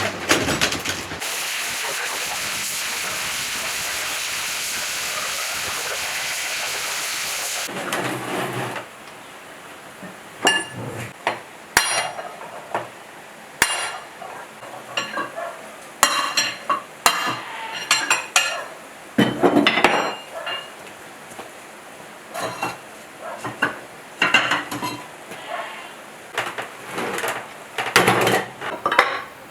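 A steady spraying hiss for about six seconds, which cuts off, then metal parts clinking and knocking as they are handled during cleaning.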